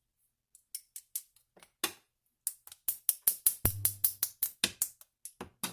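Rapid small metal clicks and taps of a pick working at a pin-tumbler lock's retainer pin while the lock is taken apart, with one duller knock about three and a half seconds in.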